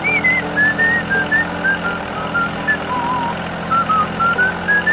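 Background music: a whistle-like melody of short sliding notes over a steady low drone and a regular beat.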